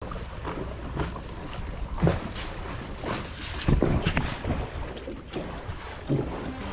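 Wind buffeting the microphone in a low rumble, with irregular short knocks and rustles.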